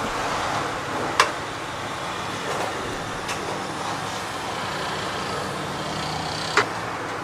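Steady background noise with a low hum, broken by three sharp clinks or knocks: one about a second in, one about three seconds in, and one near the end.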